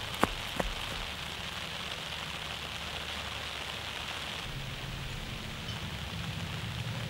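Steady hiss of light rain, with two short clicks just after the start.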